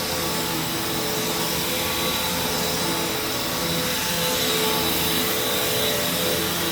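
Hoover Taskvac commercial bagged upright vacuum running steadily over carpet, its motor giving a steady rushing sound with a high whine on top.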